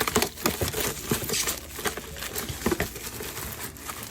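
Hands working a plastic Mini Brands toy capsule and its wrappers, giving irregular crinkling with many small plastic clicks and taps.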